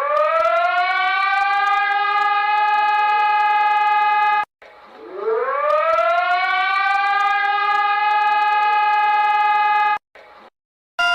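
Emergency warning siren winding up from a low pitch to a steady high tone and holding it, cut off suddenly about four and a half seconds in, then winding up and holding again before it cuts off near the end.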